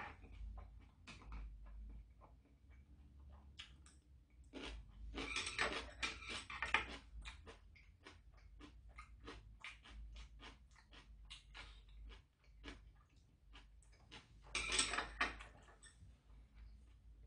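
Eating sounds from a man having sundae-gukbap: chewing with many small clicks and taps of metal chopsticks against a saucepan. There are two longer, denser bursts of eating noise, about five seconds in and near the end.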